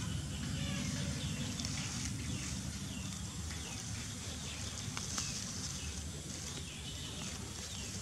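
Outdoor ambience: a steady low rumble of wind on the microphone, with faint short bird chirps repeating above it and grass rustling as a hand parts it. A couple of small clicks fall about five seconds in.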